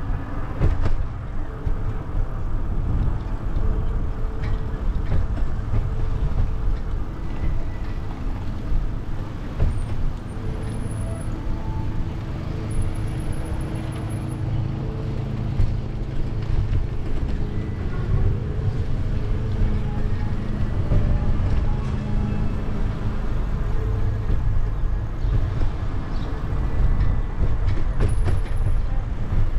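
Road traffic: a steady low rumble with the wavering engine tones of passing or idling vehicles.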